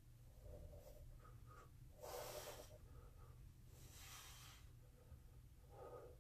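A person's breathing, with two audible breaths about two and four seconds in, over faint room tone.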